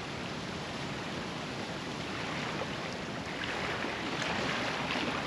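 Steady outdoor wash of wind and small lagoon waves lapping on a pebbly coral-rubble shore.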